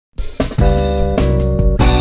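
A band of electric guitar, bass and drums starting a song: held chords over a bass line, punctuated by several drum hits, kicking in just after the start.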